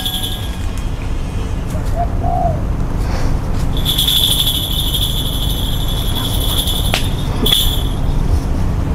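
Outdoor ambience: a steady low rumble, with a few short chirps about two seconds in. A high whistling tone is held for several seconds from about four seconds in.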